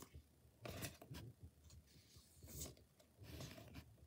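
Faint sliding and rustling of plastic-sleeved trading cards as they are moved one by one from the front to the back of a hand-held stack, a few brief swishes.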